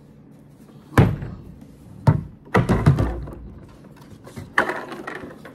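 Hollow plastic knocks and clatter from a portable camping sink's parts being handled and set against each other. There is a sharp knock about a second in (the loudest), another a second later, a quick run of knocks just after, and a few more near the end.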